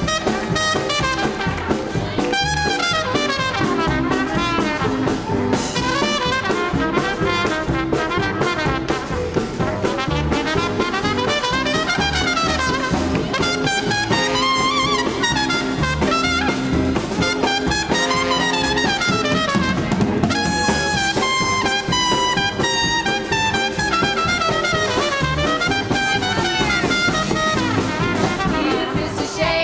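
Live swing band playing an instrumental passage, with brass horns carrying fast moving lines over a walking bass and drum kit.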